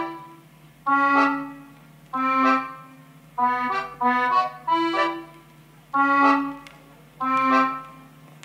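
Instrumental background music: a slow melody of single notes, about one a second, each sounding and then fading over a low held drone.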